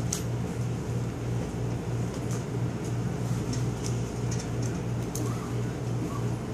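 Dry-erase marker writing on a whiteboard: a scattering of faint, short, high squeaks and scratches from its strokes, over a steady low room hum.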